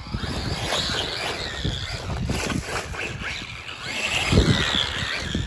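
1/10-scale Losi Baja Rey RC truck driving over grass and dirt, its Spektrum brushless electric motor running and its tyres churning over bumps, with a louder burst about four seconds in.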